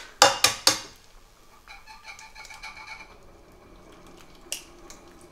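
An egg knocked three times in quick succession, about a quarter second apart, to crack its shell, then one more short crack near the end as the shell is pulled open over the frying pan.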